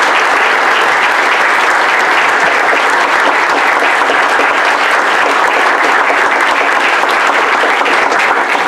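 Church congregation applauding, a steady dense clapping.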